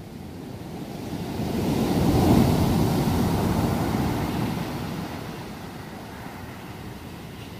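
Ocean surf: a wave breaking and its wash running up a sandy beach, the rush building to a peak a little over two seconds in and then fading slowly.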